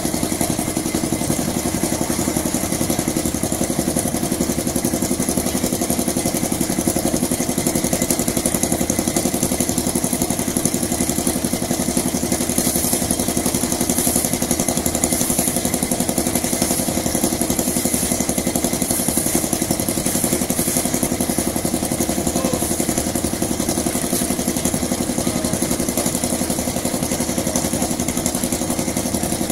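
Small engine on concrete-pouring machinery running steadily at a constant speed.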